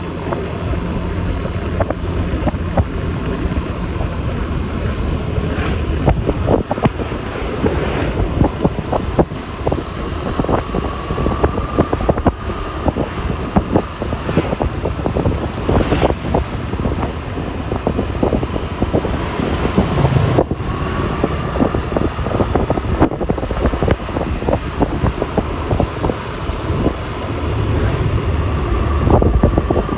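Yamaha Lexi LX 155 scooter riding along a road: steady engine and road noise with wind buffeting the microphone in quick gusts.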